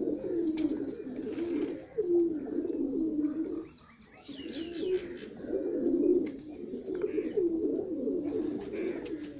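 Several old-breed Pakistani domestic pigeons cooing, their low warbling calls overlapping almost without a break, with a short lull about four seconds in.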